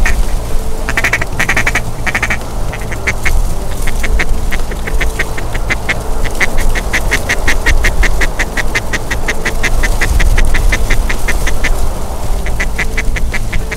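Duck quacking, mallard-style, in long runs of rapid, evenly spaced quacks with a few broader quacks near the start, over a heavy low rumble of strong wind on the microphone.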